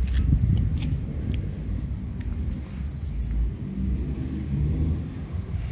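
Dry cat kibble poured onto a plastic plate: a short burst of quick clicks and rattles about halfway through, over a steady low rumble.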